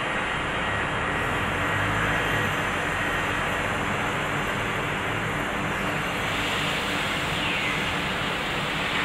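Plywood double sizer edge-trimming saw machine running with a steady mechanical drone and hum of motors and saws.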